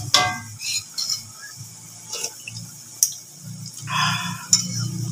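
Metal spoon clinking and scraping against a plate and the cooking pot, several separate clicks, with light liquid sounds of broth being scooped.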